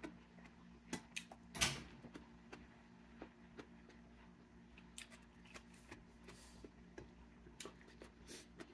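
Faint scattered clicks and taps of a person eating by hand from a plate, with a louder tap about one and a half seconds in, over a steady low hum.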